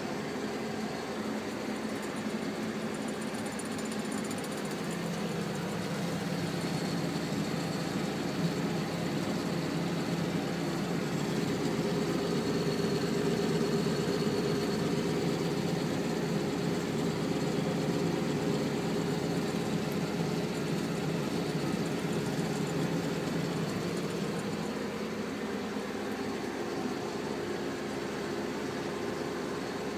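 New Holland T6050 tractor's six-cylinder diesel engine running steadily under way, heard from inside the cab, with a low even hum that grows a little louder through the middle stretch.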